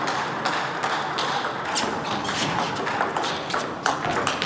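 Table tennis balls knocking off rackets and the table in a serve and rally, a string of short, irregular sharp clicks over the steady background noise of a large hall.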